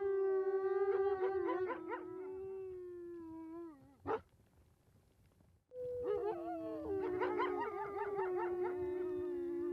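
Gray wolves howling, several voices overlapping in long held notes that bend in pitch. About four seconds in the howling breaks off with one sharp bark, part of a bark-howl, an alarm call of danger and distress; after a short silence the howling starts again.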